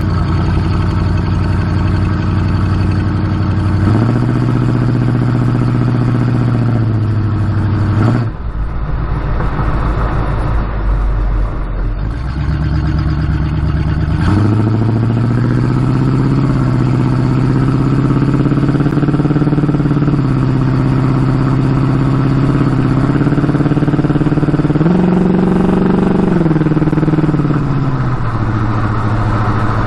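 Pontiac 400 V8 of a 1976 Firebird Formula running, its pitch held steady in stretches and stepping between them: raised about four seconds in, dropping low around eight seconds, climbing again at about fourteen seconds, and rising briefly once more near the end.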